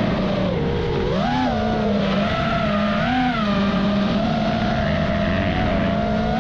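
Engine-and-motor noise of a motocross chase: a dirt bike revving with an FPV drone's motors, the pitch climbing and dropping several times as the throttle changes.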